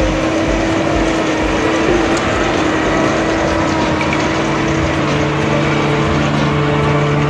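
Tractor and haymaking machinery running steadily: a JCB tractor driving a front-mounted rotary rake and a Claas Quadrant square baler at work in straw. A low pulsing is heard in the first couple of seconds, and the tone shifts about halfway through.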